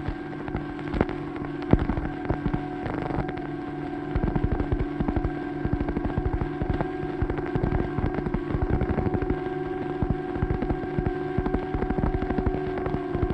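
A steady drone of several held tones under dense, irregular crackling and clicking that grows busier about four seconds in.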